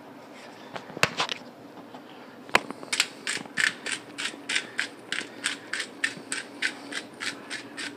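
Pepper mill being twisted to grind pepper: an even run of short crunching clicks, about three a second, starting about three seconds in. Two sharp knocks come before it, over a faint steady hum.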